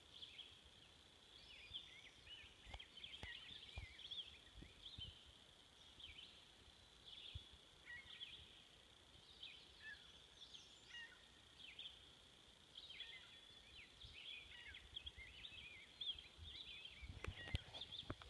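Faint birdsong: many short chirps and twitters throughout, over a steady high-pitched drone, with a few faint clicks.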